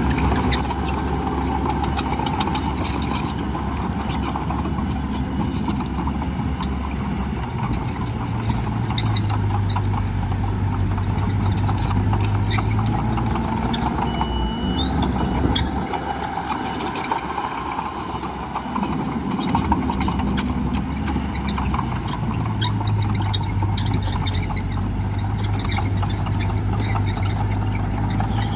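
Diesel engine of heavy earthmoving machinery running continuously. Its low drone grows louder twice, about a third of the way in and again near the end, as the engine works harder.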